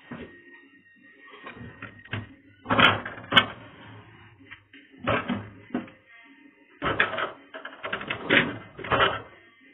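Intermittent clatter of crockery and utensils being handled in a kitchen, with two sharp knocks about three seconds in and more rattling bursts later on.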